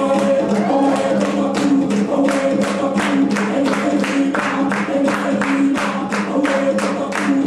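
Dance music with a steady beat of sharp drum strikes, about three a second, over held pitched notes.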